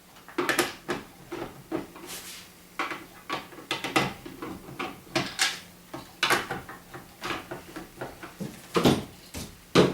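Screws being backed out of the plastic shell of a ViewLoader Force paintball hopper with a screwdriver: a string of irregular small clicks and scrapes, with two louder knocks near the end.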